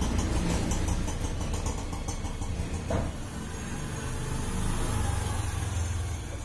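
Road traffic: motor vehicle engines running with a steady low rumble, and a short sharp clack about three seconds in.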